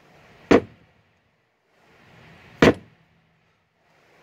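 Two sharp knocks about two seconds apart, each after a faint rustle, as heavy leather-tooling mauls and metal tools are handled at a workbench.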